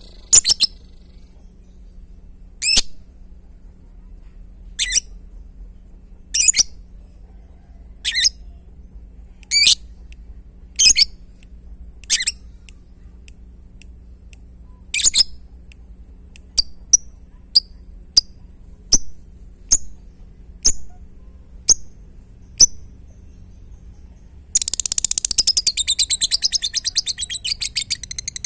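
Lovebird calling with sharp single chirps every second or two, which turn into shorter, quicker chirps past the middle. Near the end it breaks into a fast, continuous ticking chatter, the 'ngetik' (typing) song.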